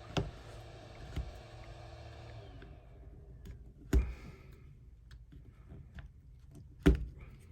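Pry tool working between an iPhone 11's frame and its screen: three sharp clicks and a few smaller ticks as tool, screen and frame knock together. A soft scraping hiss fades out over the first few seconds.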